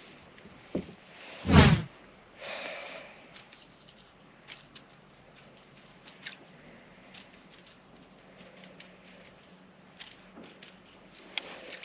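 Scattered light clicks and rattles of a fishing rod and reel being worked during a lure retrieve, with one loud whoosh about one and a half seconds in.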